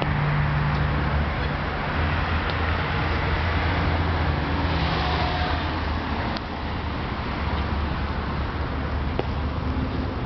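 Steady low rumble of motor vehicles with a constant low hum, and a few faint clicks.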